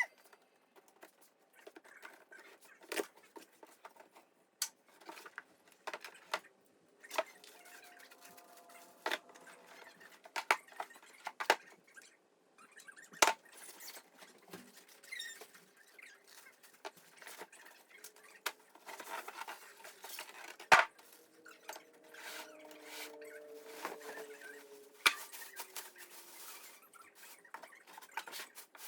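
A heavy cardboard shipping box being opened and its packing handled: scraping and rustling with scattered sharp knocks and clicks, and a few sliding squeaks in the second half.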